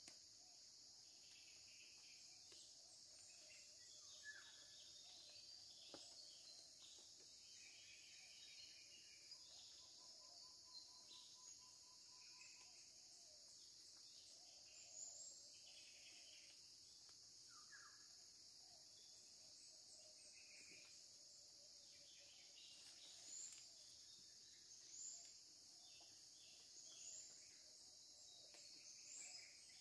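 Faint insect drone with scattered bird chirps and calls. About ten seconds in there is a short rapid trill, and near the end a short high call repeats every couple of seconds.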